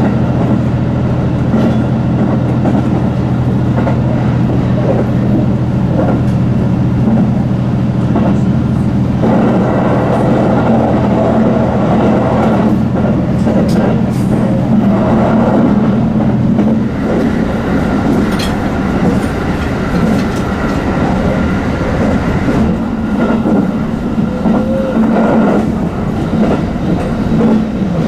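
A train running along the rails, its wheels clicking over rail joints. A steady low hum underneath stops a little past halfway through.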